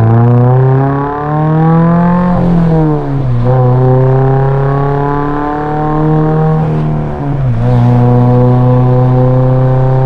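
Subaru BRZ's flat-four engine pulling under load. The revs climb, drop sharply at a gear change about two and a half seconds in, hold steady, then dip again at another gear change near seven seconds.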